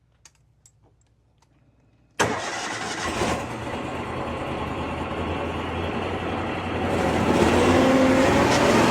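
A few faint clicks, then the engine of a Sapphire Scientific 370 EFI truck-mounted carpet-cleaning unit starts about two seconds in and runs steadily. It gets louder a few seconds before the end as it settles into a higher running speed.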